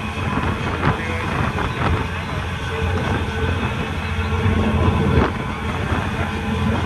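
Steady low rumble of a vehicle in motion, with voices in the background.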